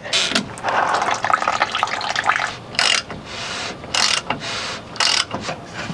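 Diesel fuel running out of the 6.7 Powerstroke's lower fuel filter housing as its drain is opened, a trickling, splashing flow, followed by three short bursts of ratchet clicking about a second apart as the housing is loosened.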